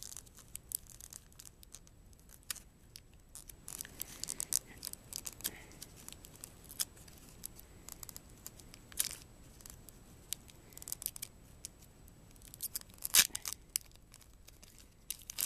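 Foil booster-pack wrapper crinkling and tearing in scattered sharp crackles as it is pried open by hand, the loudest about 13 seconds in. The wrapper is stubborn: rough to get open.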